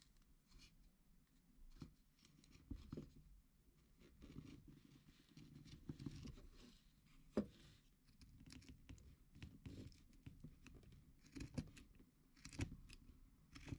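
Faint, scattered scraping and rustling of hand work on the saw handle, with small clicks and one sharper knock about seven seconds in.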